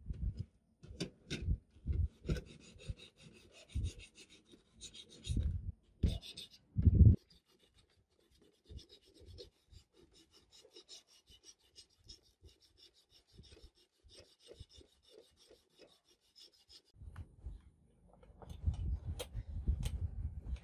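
Hands rubbing and peeling loosened paint off a diecast model car body in a metal tin tray: a fine, rapid crackly scratching with scattered knocks of the body against the tray. Near the end comes heavier rubbing and handling of the bare metal body.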